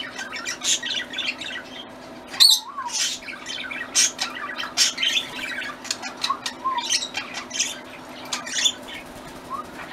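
Several budgerigars chattering in a cage: quick high chirps and squawks, one after another, over a steady low hum.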